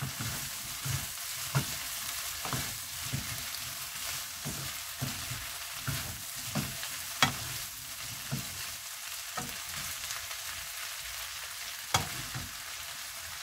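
Sweet potato stems sizzling as they stir-fry in a frying pan, tossed with a wooden spatula. A steady hiss runs under irregular knocks and scrapes of the spatula against the pan; the sharpest come about seven and twelve seconds in.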